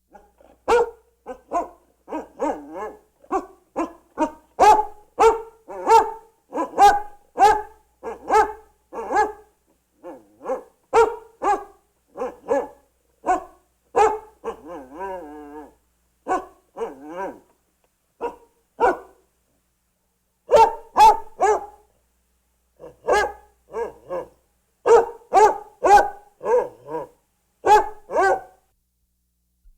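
Hound dog barking in long runs of short barks, roughly two a second, with a brief wavering whine about halfway through and a couple of short pauses later on.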